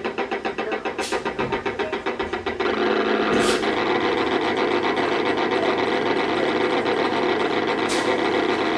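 Replica Besshi No. 1 mining-railway locomotive running as it pulls away, with a rhythmic beat of about five pulses a second. About two and a half seconds in this gives way to a louder steady sound, with a few short sharp sounds over it.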